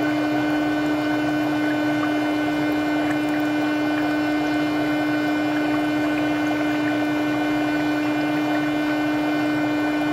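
Electric foot spa's bubble motor running with a steady hum, water bubbling and fizzing in the basin.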